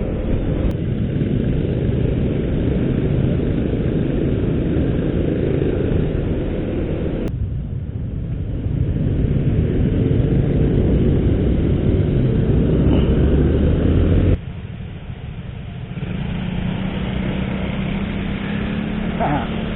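Road traffic at an intersection: vehicle engines running and moving off, with no horn sounding. The traffic noise changes abruptly a few times as the footage cuts.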